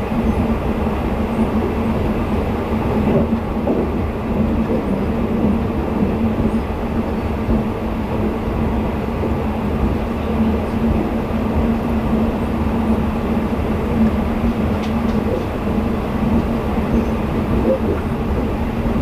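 Twilight Express sleeper train running at speed, heard from inside a passenger coach: a continuous rumble of wheels on rail with a steady hum under it.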